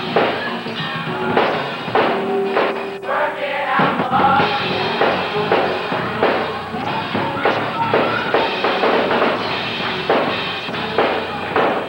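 Gospel choir singing with a drum kit keeping a steady beat.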